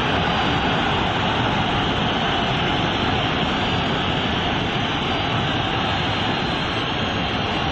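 Football stadium crowd, a steady, even roar.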